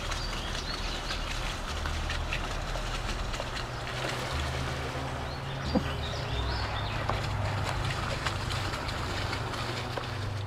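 Outdoor pond-side ambience: a steady low rumble on the microphone under a soft even hiss, with a few faint bird chirps.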